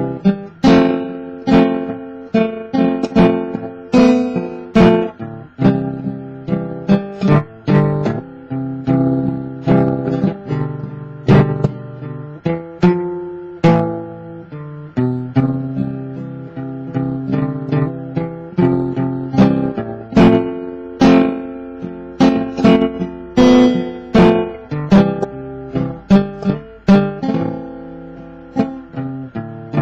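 Steel-string acoustic guitar played solo, chords strummed and picked with each one left to ring, no singing.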